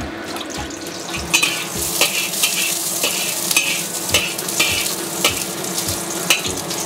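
A little oil sizzling in a wok while a metal spatula stirs and scrapes a few slices around the pan, with irregular scrapes about twice a second over the steady sizzle.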